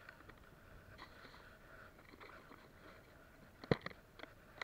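Plastic fishing box being handled and packed: faint rustling, then a sharp plastic click near the end with a few lighter knocks after it.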